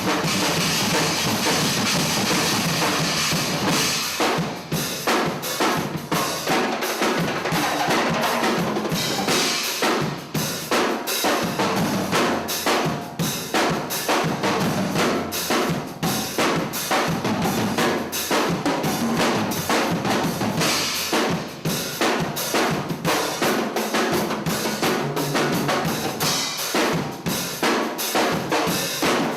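Drum kit played continuously in a busy groove: fast, dense strokes on bass drum and snare, with a cymbal wash that swells now and then.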